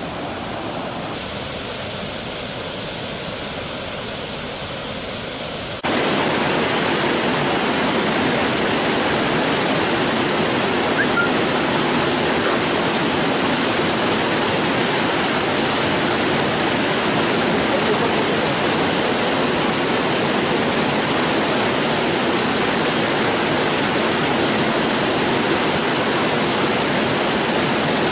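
Floodwater rushing and churning in a river in spate, a steady, even rush of water over rocks that jumps suddenly louder about six seconds in and then holds steady.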